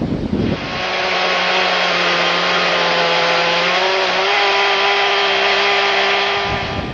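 Chainsaw engine running at high speed while cutting through wood, with the saw guided by a clamp-on micro chainsaw mill. It starts about a second in, its pitch shifts slightly partway through, and it dies away just before the end.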